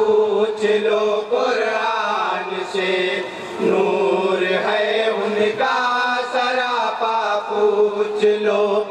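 A group of men chanting a naat together in chorus, voices held in long drawn-out, wavering notes.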